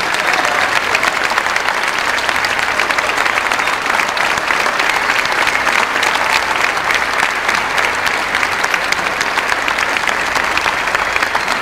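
Large concert audience applauding steadily, a dense, even clatter of many hands clapping.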